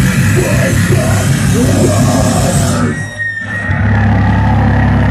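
Loud, distorted live punk band, with guitars, drums and yelled vocals, playing flat out. It stops abruptly about three seconds in, and a moment later a steady low drone comes in.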